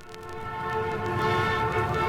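A horn sounding a steady chord of several notes at once over a low rumble, swelling in over the first second and then holding.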